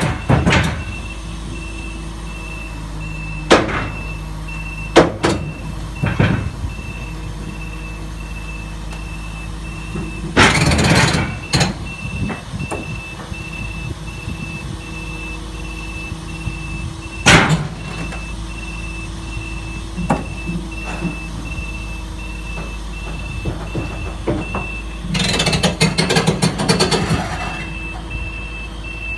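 Heavy diesel engine of a crawler crane idling, with a reversing alarm beeping steadily throughout. Loud metal clanks break in several times, with longer rattling, clattering stretches about ten seconds in and again near the end.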